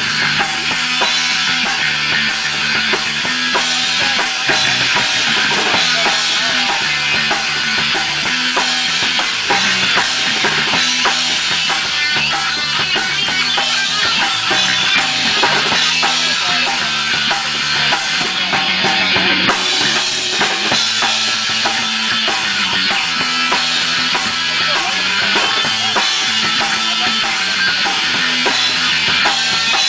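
Rock band playing live, drum kit to the fore over a moving bass line.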